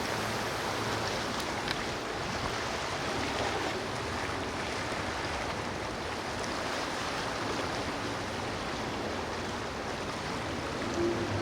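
Steady rush of water and waves with no distinct events.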